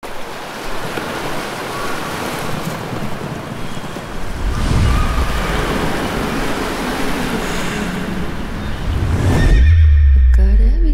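Ocean surf washing on a sandy beach, with a horse neighing. About nine and a half seconds in, the surf cuts off suddenly and a loud deep low drone takes over, with a tone that rises and then holds near the end.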